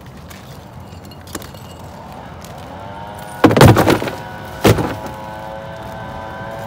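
Loose bricks from an old brick chimney knocking and clattering as they are pulled off by hand: a loud clatter a little past halfway, then one sharp knock about a second later. Music fades in underneath near the middle.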